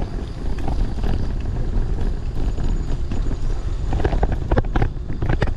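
Ride noise from a bicycle rolling along a concrete lane: steady wind buffeting on the microphone and tyre rumble, with a run of sharp knocks and rattles about four to five seconds in.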